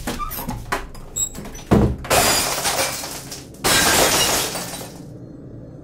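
A few sharp clicks and a thump, then two long, harsh crashes, one straight after the other, the second dying away near the end.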